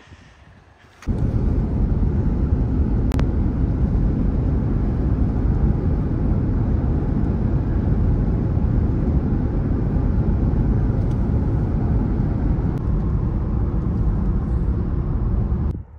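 Steady road and wind rumble inside a pickup truck driving at highway speed, heavy in the low end, starting about a second in.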